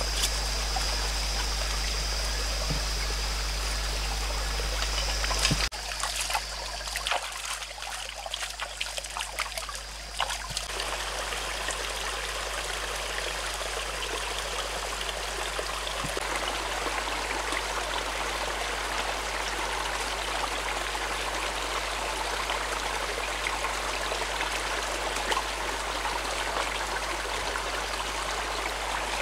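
Small rocky forest stream trickling and splashing over stones, a steady even rush of water. In the first few seconds there is a different steady hiss with a high steady tone, then a few seconds of scattered clicks and rustles before the water sound settles in.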